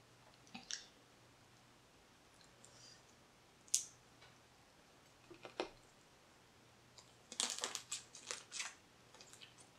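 Cooked blue crab shell being picked apart by hand: a few scattered sharp clicks and crackles, then a quick run of smacking, crackling mouth noises a little past halfway as meat is sucked out of a crab leg.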